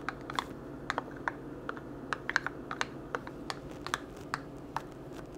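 A spoon stirring cornstarch slurry in a small plastic container, giving irregular light clicks and taps, a few a second.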